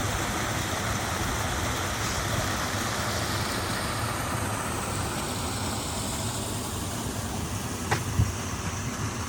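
Steady rushing of water flowing from the springs at the bottom of the ravine. Two short knocks sound about eight seconds in.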